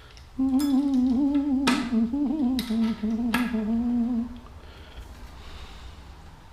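A man humming a wandering tune for about four seconds. Four sharp clicks, such as tools knocking on bike parts, fall in among the humming.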